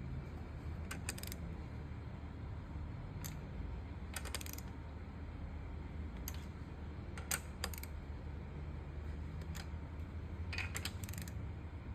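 Ratchet wrench clicking on ARP head stud nuts of a VQ35DE cylinder head as they are tightened in stages toward 30 ft-lb. The clicks come in short quick groups of two to four, a few seconds apart, over a steady low hum.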